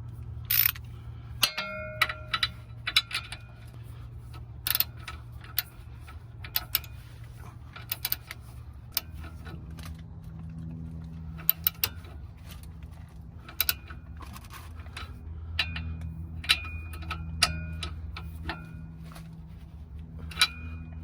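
Irregular metallic clicks and clinks of hand tools on steel as the castle nut is fitted and tightened onto the Honda Civic's lower ball joint stud, some clicks ringing briefly, over a steady low hum.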